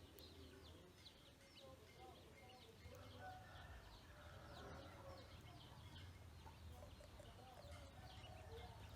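Ducklings peeping: many faint, short, high peeps falling in pitch, several a second, with lower-pitched calls joining in about three seconds in.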